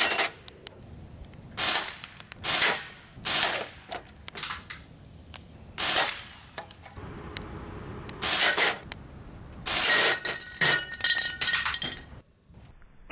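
Crosman 362 .22 multi-pump air rifle fired again and again, its pellets smacking into metal knockdown targets and cans. Near the end a struck metal target clatters and rings.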